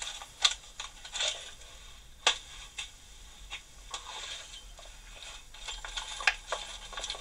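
Small metal hand tools clicking, clinking and scraping as they are handled and set down in a wooden drawer, with a few sharp knocks among lighter rattling.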